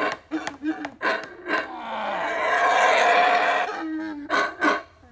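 Yucatán black howler monkey calling: a string of short calls, then a long rough roar starting about two seconds in and lasting almost two seconds, then more short calls.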